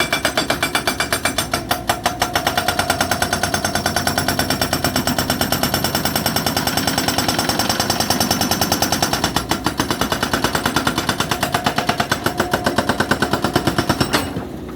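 Hydraulic rock breaker (Unicorn UN100B) on an excavator hammering continuously, a rapid, even stream of hard blows that stops abruptly near the end.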